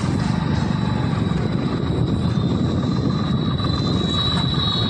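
Steady running noise of a moving two-wheeler: its engine with road and wind noise. A thin high whine grows louder near the end.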